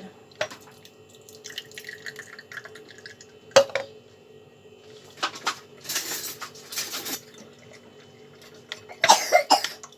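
Onion-infused water being strained: liquid pouring and dripping through a strainer into a glass, in a few separate pours, with a sharp clink of kitchenware about three and a half seconds in.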